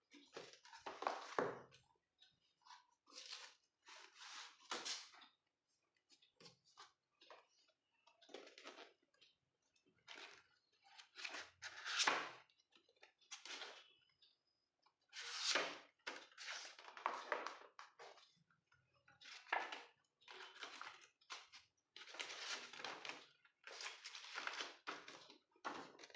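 Packaging and paper being handled during an unboxing: irregular rustling and crinkling in short bursts, some crisper and louder than others.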